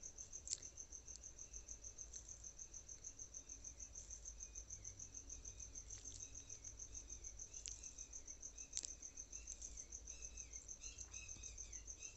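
A cricket chirping steadily in the background: a faint, high, rapidly pulsing trill that keeps an even beat. A few faint sharp clicks come through, one about half a second in and one near nine seconds.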